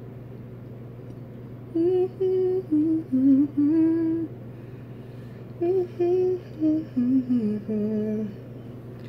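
A person humming a wordless tune in two short phrases of held notes that step up and down, over a steady low background hum.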